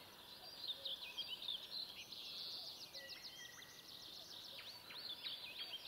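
Several songbirds singing at once in an early-morning dawn chorus: a dense run of quick high chirps and trills, with one longer held whistle about halfway through.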